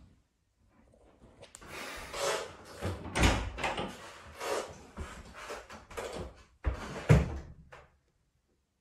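A wooden panel door being handled: a run of scraping and knocking, with two heavier thumps about three seconds in and about seven seconds in.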